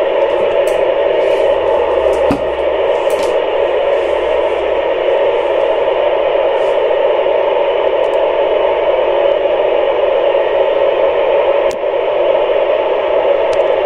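Steady radio static: the open-squelch hiss of an amateur transceiver tuned to the ISS voice repeater, with no station transmitting. A faint click about twelve seconds in.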